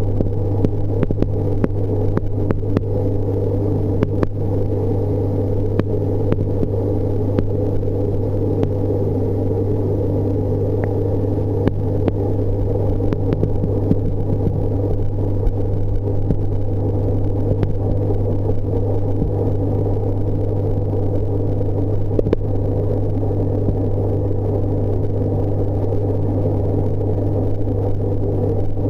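Aquarium equipment running with a steady, unchanging electrical hum, and a few faint ticks here and there.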